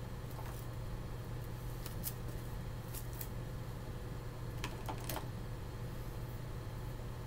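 A few short clicks and crinkles from a plastic palette cover and paint tubes being handled, the sharpest cluster about five seconds in, over a steady low hum.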